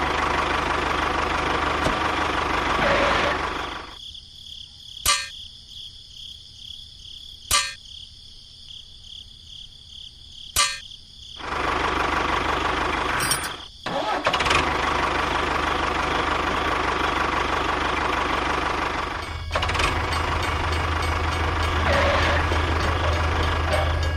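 A motor running steadily. It cuts out for about seven seconds, during which three sharp clicks sound, then runs again.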